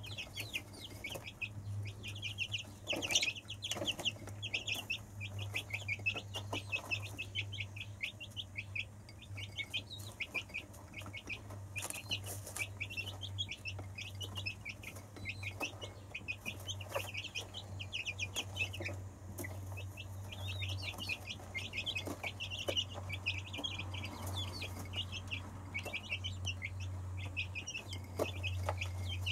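Silkie chicks peeping nonstop in quick, short, falling chirps as they feed together at a dish, with a few sharp clicks and a steady low hum underneath.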